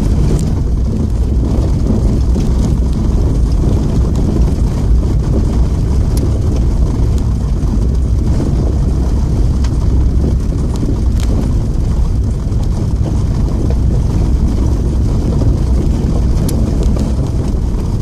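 Car driving on a gravel road, heard from inside the cabin: a steady low rumble of engine and tyres on gravel, with a few faint ticks.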